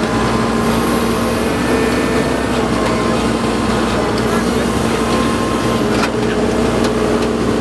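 Komatsu WB93R backhoe loader's diesel engine running with a steady hum as its boom moves and the bucket is lowered, over crowd chatter.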